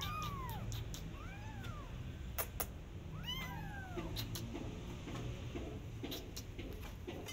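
Kittens meowing: three high, arching meows in the first four seconds, two of them with a second kitten calling over the first. A sharp click falls between the second and third.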